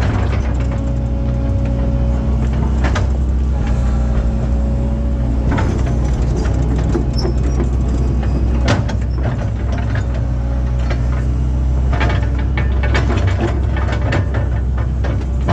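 Link-Belt excavator's diesel engine running steadily under working load, with scattered knocks and clunks as the machine works the ground.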